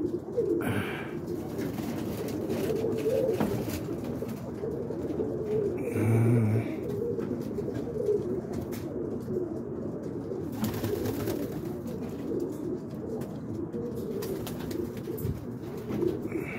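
Many pigeons cooing together in a steady, low warbling chorus, with a brief louder sound about six seconds in.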